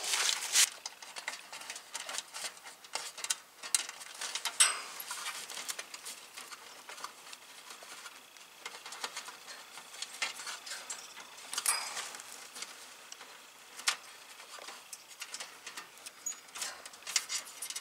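Hands handling electrical wires at a heat pump's control box: irregular light rustling and scraping with scattered small clicks, a few sharper clicks standing out.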